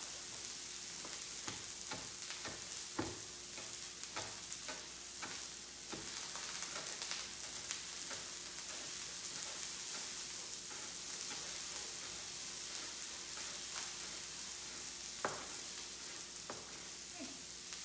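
Okra frying in oil in a skillet, a steady sizzle, with a knife tapping on a cutting board now and then as chives are finely chopped.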